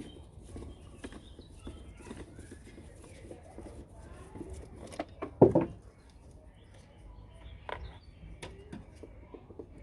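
Scattered small clicks and knocks of tools and plastic engine-bay parts being handled, with one loud knock about five and a half seconds in.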